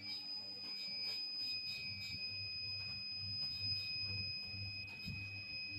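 High-pitched electronic tone from a device's beeper, sounding steadily after short beeps just before. Faint clicks and a low pulsing hum run underneath.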